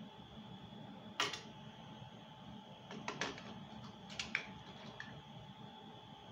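Sharp, small clicks and taps of something small being handled in the hands. There is one about a second in, a quick cluster around three seconds, a pair just after four and a faint one near five, over a steady background hum.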